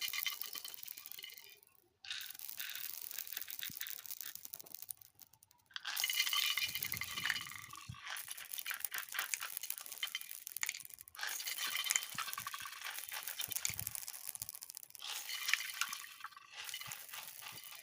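Many small beads pouring and clattering against each other in a dense, high rattle, in several runs of a few seconds with short breaks between them.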